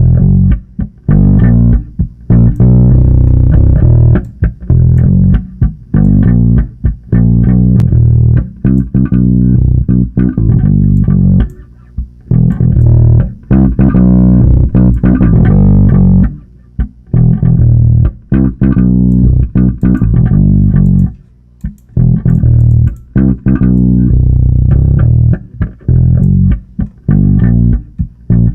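Electric bass guitar recorded from a miked cabinet, playing a riff of notes broken by short gaps. It is compressed hard through the Acme Audio Opticom XLA-3 optical compressor plugin on its fast response setting.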